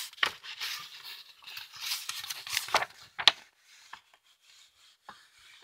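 A sheet of drawing paper rustling as it is handled and lifted, with a few sharp clicks; the rustling dies down after about three seconds.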